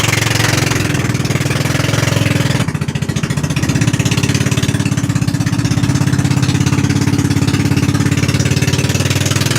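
Small motorboat's engine running steadily at cruising speed with a fast, even putter, the note dipping and shifting briefly about three seconds in.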